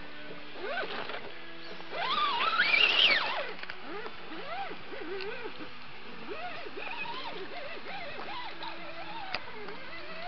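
Electric motor of a 1/10-scale RC rock crawler whining at steady pitches that shift as the throttle changes. About two seconds in comes a loud, high sound that wavers up and down in pitch for over a second, then smaller rising-and-falling sounds follow.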